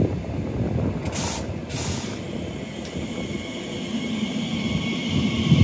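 A train on the line: a steady low rumble, with two short hisses a little after a second in and a higher rail hiss building toward the end.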